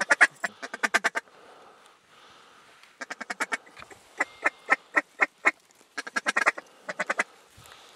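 Mallard duck call blown in three quick runs of loud, close quacks, the first and last about a second long and the middle one about two and a half seconds, calling to a flock of ducks working overhead.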